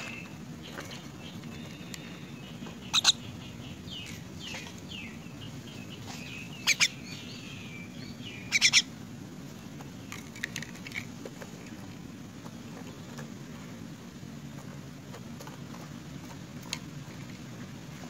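A young myna pecking at insects in a plastic cup: sharp clicks of its bill on the plastic in quick pairs or threes, three times in the first half, then a few lighter taps. Some faint chirps sound in the first few seconds over a steady low hum.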